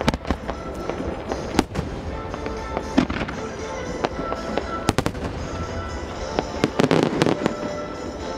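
Fireworks shells bursting in a music starmine: sharp bangs every second or two, with a dense cluster of bursts and crackle about seven seconds in, over music played along with the show.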